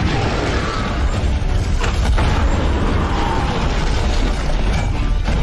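Film-style sound effects of a giant creature's heavy landing: a continuous deep booming rumble and crash of breaking rubble, with a couple of sharper crashes, about two seconds in and near the end. Background music runs underneath.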